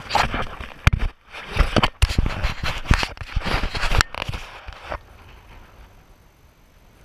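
Handling noise from a body-worn action camera: scraping, rustling and sharp knocks as the rain jacket rubs against it and the wearer moves. It stops about five seconds in, leaving a faint steady hiss.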